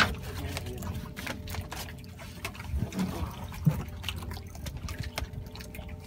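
Water lapping and dripping against a wooden outrigger boat's hull, with many small knocks and clicks over a faint steady hum.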